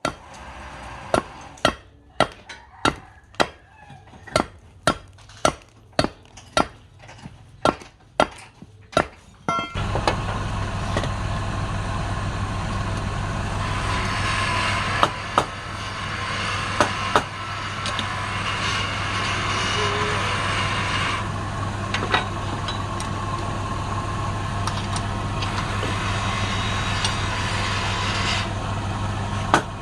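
About sixteen sharp knocks, roughly two a second, like hammer or mallet blows. Just before ten seconds a wood lathe's motor starts and runs with a steady hum. Twice a louder hissing scrape rides over it, in keeping with a tool cutting the spinning work.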